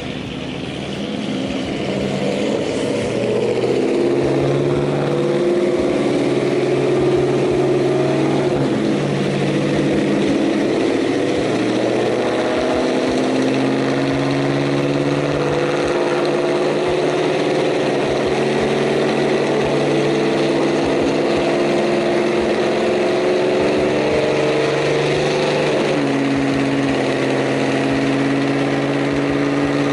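Car engine running loud, with a steady low note and a higher tone that climbs slowly for about twenty seconds and drops back near the end.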